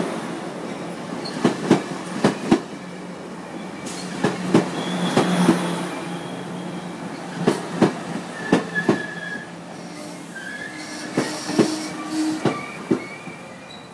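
Amtrak Pacific Surfliner bi-level passenger cars rolling slowly out of the station past the platform, their wheels clicking over rail joints in uneven clusters over a steady low hum. Short squeals from the wheels come in the second half.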